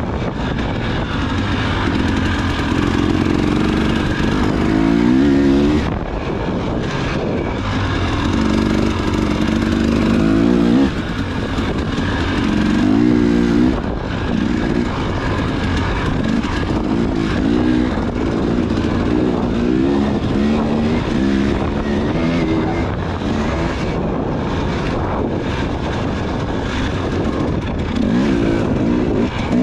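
Off-road motorcycle engine racing hard, revving up through the gears over and over: the pitch climbs, then drops as it shifts, with quick throttle blips and short lifts.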